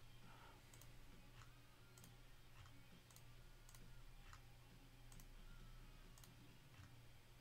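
Faint single clicks of a computer mouse button, pressed again and again about once a second, over a low steady hum.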